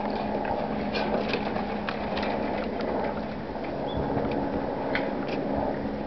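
Outdoor ambience: a steady low mechanical hum, like a distant engine, under scattered small clicks and ticks, with one brief high chirp about four seconds in.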